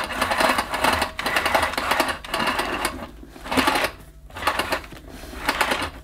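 Power cord being pulled out of a Hoover Celebrity canister vacuum's cord-rewind reel, the reel giving a rapid clicking rattle. It goes on for about three seconds, then comes twice more in shorter pulls.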